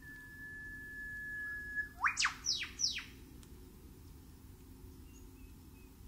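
Bird calls: one long steady whistle held for nearly two seconds, then a quick rising note and three sharp falling notes in quick succession.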